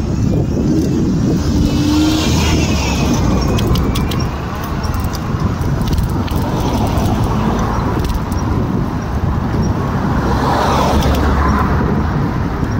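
Steady rumble of wind and road noise on a phone microphone carried on a moving bicycle, with cars passing in the adjacent traffic lane.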